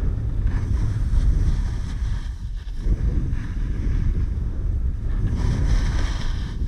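Wind buffeting the microphone of a pole-mounted camera on a snowboarder riding downhill, with the hiss of the snowboard's edge scraping across snow swelling twice, about half a second in and again near the end.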